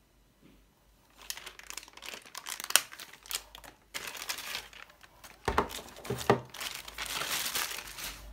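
Clear plastic bag crinkling and rustling as a laptop power adapter and its cable are pulled out of it, with a couple of sharper knocks about five and a half seconds in. It starts after a quiet first second.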